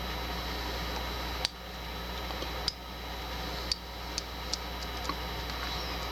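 A lock pick working the pin stack inside a padlock's keyway, making about six small sharp clicks at uneven intervals over a steady low background hum.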